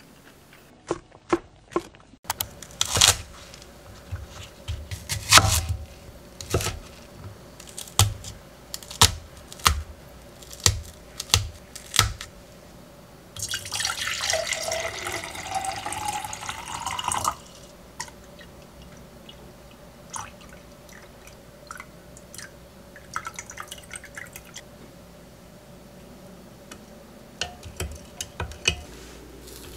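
Water poured from a glass pitcher into a glass measuring jug for about four seconds, with a pitch that glides upward as the jug fills. Before and after it come scattered sharp clinks and knocks of kitchenware being handled and set down.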